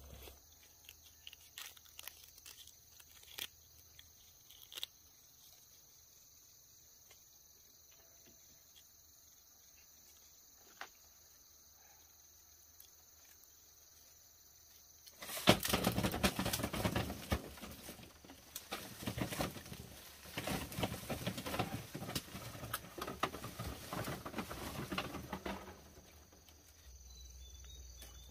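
Steady high chirring of insects with a few scattered light clicks. About fifteen seconds in, loud dense rustling and crackling starts and runs for about ten seconds.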